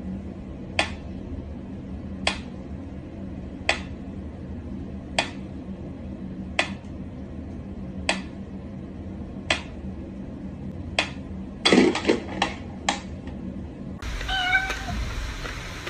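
Mechanical pyramid metronome ticking slowly, one tick about every second and a half. A cat meows loudly near the end.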